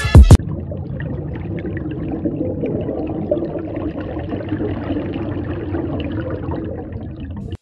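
Aquarium filter running: its outflow bubbles and trickles into the tank water with a steady noise and faint crackle of bursting bubbles. A snatch of hip-hop music cuts off in the first half-second.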